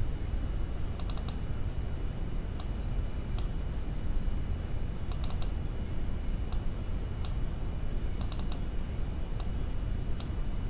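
Computer keyboard and mouse clicks while text is edited, coming singly and in quick runs of two or three, over a steady low background rumble.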